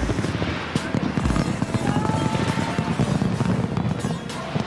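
Music playing with fireworks going off over it: a dense crackle of small bangs and the odd low boom.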